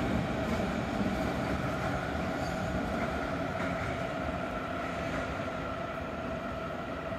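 Regional train departing and running away: a steady rumble of wheels on track with a steady whine on top, slowly fading.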